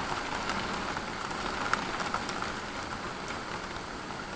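Heavy rain falling steadily, an even hiss with a few sharp ticks.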